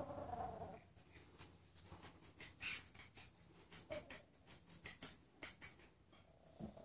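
Yorkshire terrier puppy vocalizing with a short pitched sound that fades out about a second in, followed by a run of faint, scattered clicks and scuffs.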